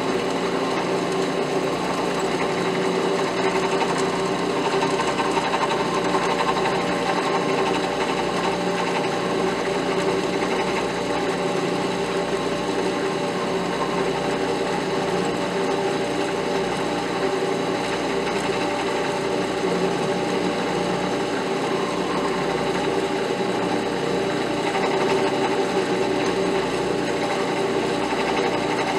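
Drill press motor running steadily while a number 33 drill bit is slowly fed through an oil pan drain plug, boring a small angled vent hole.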